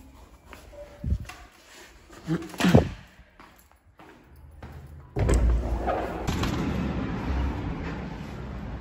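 A thump about a second in, then a short, loud squeak that slides up and down in pitch near three seconds. About five seconds in, a sudden steady rush of wind buffets the phone's microphone outdoors.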